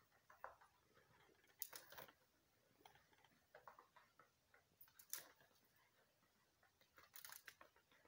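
Chukar partridges moving about: faint, irregular scratching and ticking in short clusters, about half a dozen over the stretch, the sharpest a little after the halfway point.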